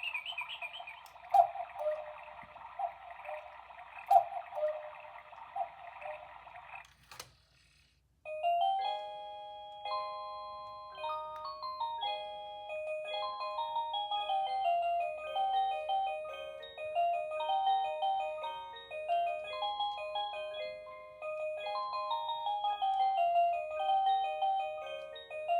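Cuckoo clock going off: for about seven seconds its mechanism runs with a breathy whirring and a few sharp clicks as the cuckoo calls. After a short pause, its music box plays a tinkling melody of clear, separate notes.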